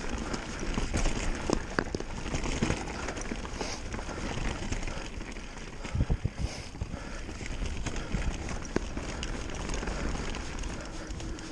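Specialized Turbo Levo e-mountain bike rolling over a rough dirt trail with its motor not running: tyres rumbling and crunching over dry leaves and stones, with the frame and chain clattering and knocking over bumps. About six seconds in, a quick run of heavy knocks stands out as the loudest moment.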